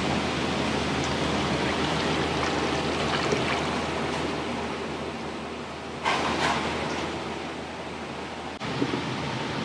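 Steady rushing noise of the kind running water makes, with a sharper, louder surge about six seconds in.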